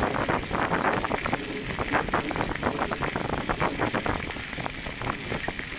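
Dog scooter rolling fast over a gravel trail, its tyres crunching and clattering on the stones in a dense, irregular run of clicks.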